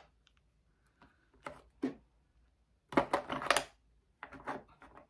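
Small makeup containers clicking and clattering as they are handled and sorted, with scattered light clicks and a busier cluster about three seconds in.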